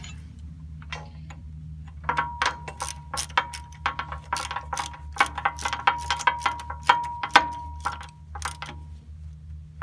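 Hand tools working steel hardware on a backhoe cylinder pin: a run of sharp, ratchet-like metal clicks and clinks with a ringing tone, starting about two seconds in and stopping near the end. A steady low hum runs underneath.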